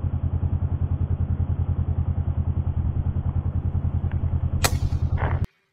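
Vehicle engine idling close by, a steady low throb with a rapid, even pulse. About four and a half seconds in there is a sharp clack and a brief scrape, and then the sound cuts off abruptly.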